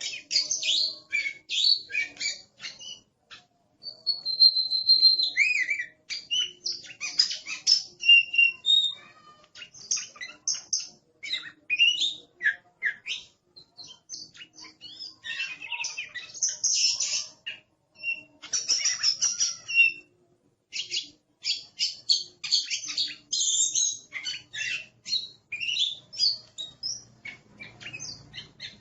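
Oriental magpie-robin singing a loud, fast, varied song of sweet whistles, chirps and harsh chattering notes, in phrases broken by brief pauses. It is a noisy, aggressive-style song of the kind used as a master recording to train other songbirds.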